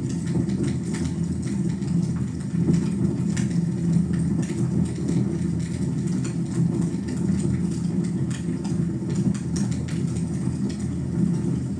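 Wood fire burning in a fireplace: a steady low rumble of the flames with many small crackles and pops scattered irregularly throughout.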